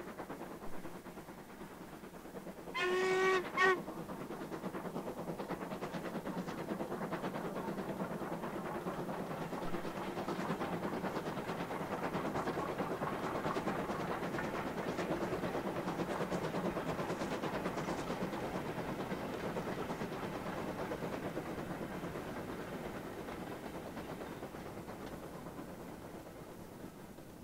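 Steam tank locomotive's whistle sounding for a lineside whistle board: a long blast then a short one, about three seconds in. Then the engine's steady exhaust beats and the clatter of its goods wagons pass by, growing louder and then fading.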